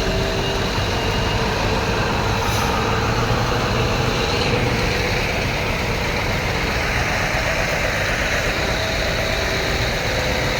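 Heavy truck engine running steadily, with a broad hiss of road noise that swells about halfway through.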